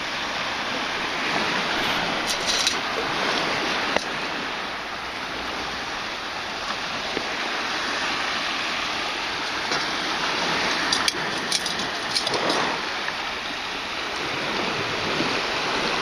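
Shallow bay water sloshing and running as a perforated sand scoop is worked and lifted out, water draining through its holes; a steady splashing wash with a few small clicks.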